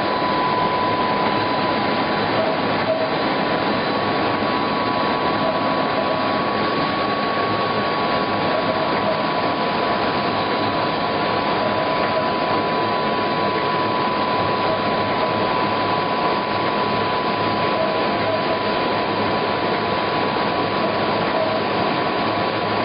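Instant noodle production line machinery running steadily: a dense, even mechanical noise with a constant high whine over it.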